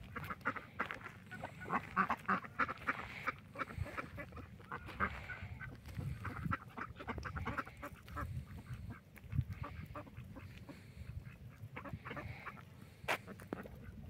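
A flock of domestic ducks and mallards quacking in quick runs of calls, busiest in the first few seconds. A couple of sharp clicks sound near the end.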